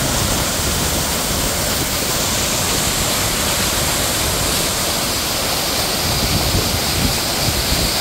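Seasonal rain-fed waterfall pouring, a steady, even rush of falling water.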